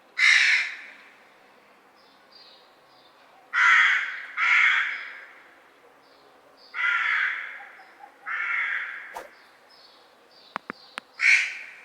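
Crow cawing six times, single caws and pairs spaced a second or more apart. A few sharp clicks come near the end.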